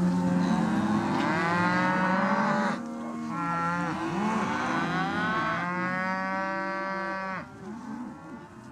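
A herd of cattle mooing, many calls overlapping at once, with the herd's noise dropping somewhat about three seconds in and fading out near the end.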